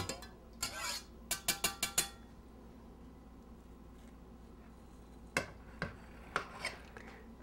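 A metal kitchen knife clinking against a glass of hot water as it is dipped in and lifted out: a brief splash-like hiss and a quick run of ringing clinks in the first two seconds. Then a few faint clicks as the blade cuts down through the cream cake and touches the plate.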